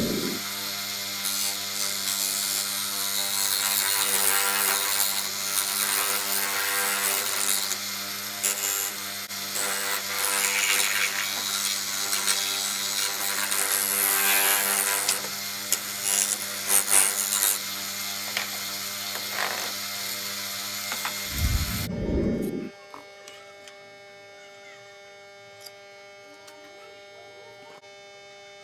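An electric power tool running, with a steady motor hum under a loud rattling, scraping noise. It cuts off suddenly about 22 seconds in, leaving a faint steady electrical hum.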